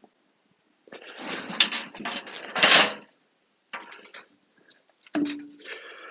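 Hands rummaging through soil emptied from a potato tub into a wheelbarrow: a rough scraping rustle for about two seconds, then shorter bursts of rustling near the end as potatoes are picked out.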